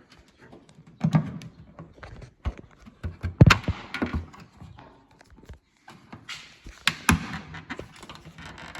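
Thunks and scraping from a plastic tailgate trim panel being pulled off its retaining clips by hand, in several separate knocks.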